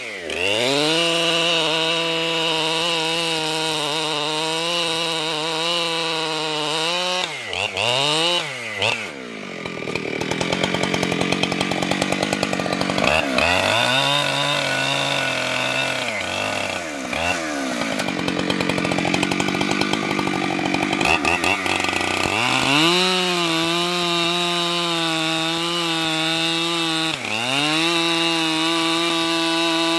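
Two-stroke chainsaw ripping lengthwise through a log to cut a plank, the engine running at high revs. Its pitch sags and recovers several times as the chain bites into the wood, and it runs rougher under heavier load through the middle of the cut.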